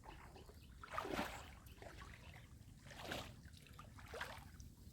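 Water sloshing and splashing softly a few times.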